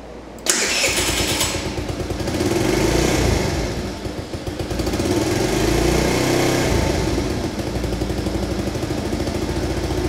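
Tao Tao 50cc GY6 (139QMB) four-stroke single-cylinder scooter engine starting about half a second in. It gets louder and quieter twice, then settles into a steady idle.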